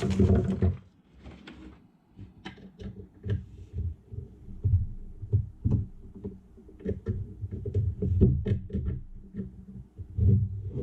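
Metal parts of a fly-tying vise and its bench base being handled and fitted together: scattered small clicks and taps over irregular dull knocks.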